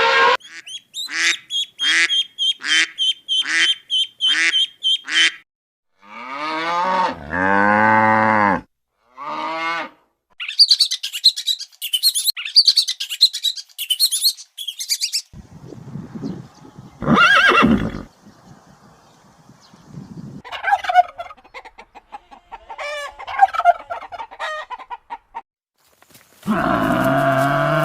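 A series of different animal calls, one clip after another with short gaps, mostly fowl and bird calls: a run of about nine short, evenly spaced calls, then longer calls and high-pitched chattering. Near the end a cow starts mooing.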